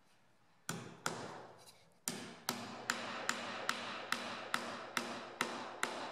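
Hammer driving nails into a pine board. Two setting taps come first, then a short pause, then about ten steady blows, roughly two and a half a second, each with a short metallic ring.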